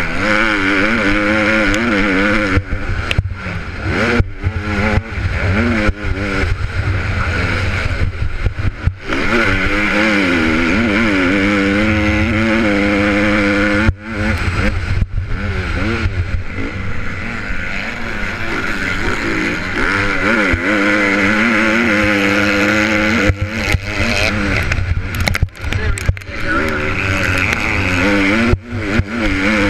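Honda CRF150R motocross bike's four-stroke single-cylinder engine at race pace, heard from a camera on the bike: the engine note rises and falls as the rider works the throttle through the gears, with several short dips where the throttle snaps shut.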